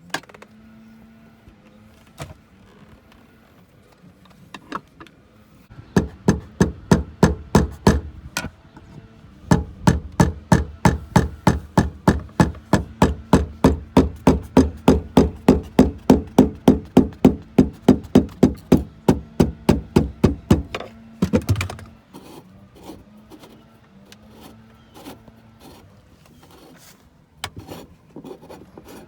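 Quick, even hammer taps, about three or four a second: a short run, then a longer one of about eleven seconds.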